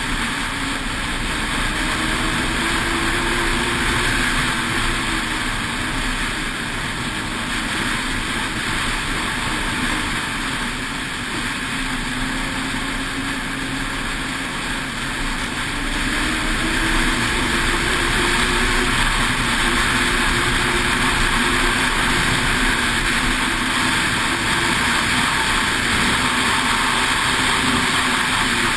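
Ski-Doo 600 XRS snowmobile's two-stroke engine running under way, its pitch rising and falling with the throttle, over a steady rushing noise.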